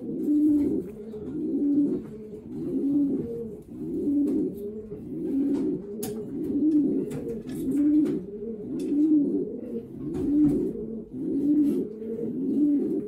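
Racing pigeons cooing: low coos overlap one another, a new one about every second. A few light clicks and knocks sound among them.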